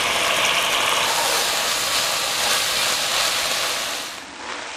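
Chopped broccoli and crumbled sausage sizzling steadily in a hot oiled pan. The sizzle drops away about four seconds in.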